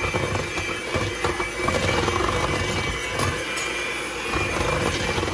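Electric hand mixer running steadily, its beaters mixing thick cream-cheese cheesecake batter.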